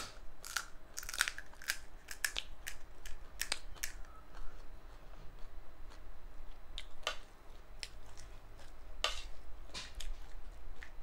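Crisp panipuri shells crackling and cracking as they are broken open and worked with a spoon: a dense run of sharp cracks for the first few seconds, then scattered ones, with a louder crack about nine seconds in.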